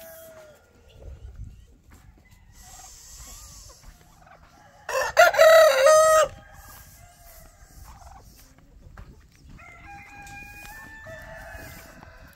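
A rooster crows once, loud, about five seconds in, for a little over a second. Fainter calls from other fowl follow near the end.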